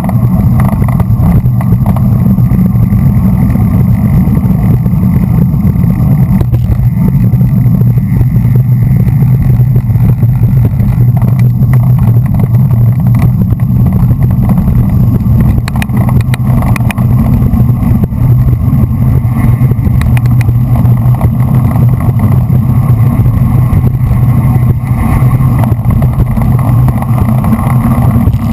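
Steady, loud low rumble of wind buffeting a bike-mounted action camera's microphone, mixed with tyre and road noise from riding at race speed. A few brief rattles come a little past halfway.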